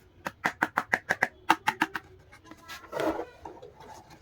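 A quick run of sharp, lightly ringing clicks and taps on hard plastic toy parts, about a dozen in two bursts. A short rustle follows near the end.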